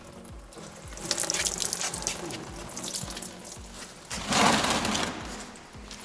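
Antifreeze draining in a thin stream from an Opel Astra G's radiator drain tap and splashing into a plastic drain pan, a steady trickling hiss. A louder noisy burst comes about four seconds in.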